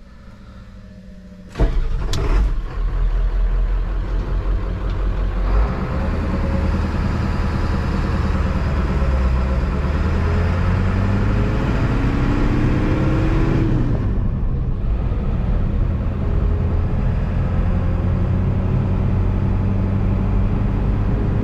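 An older Ford truck's engine starts about a second and a half in and runs, then the truck pulls away: the engine rises in pitch as it accelerates, drops off sharply near the middle as the driver changes gear, and runs on steadily while driving.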